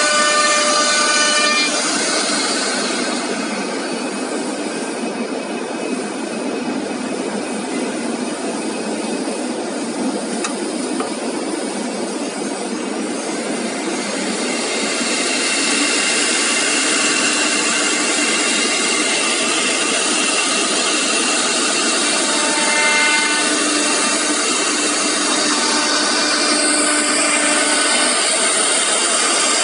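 Three-head CNC router's spindle running as its bit routes grooves into an MDF board: a loud, steady whirring and cutting noise with a few steady whining tones. It drops somewhat quieter for several seconds after the start and picks up again about halfway through.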